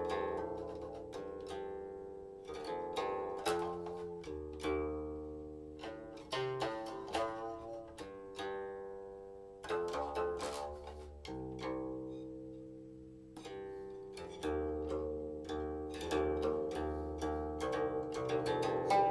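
Silk-string guqin played solo: single plucked notes and short clusters, each ringing and fading, with pauses where the sound decays between phrases.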